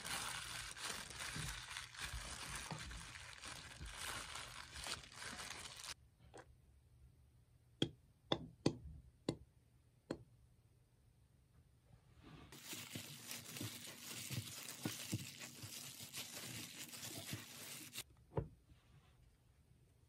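Thin disposable plastic glove crinkling as a gloved hand works rice in a bowl, in two long stretches, with a few sharp clicks in between.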